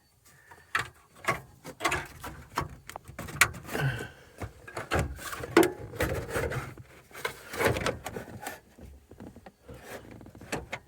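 Dashboard trim panel being worked loose by hand: an irregular run of clicks, knocks and rubbing as the panel is pulled and pried at its clips.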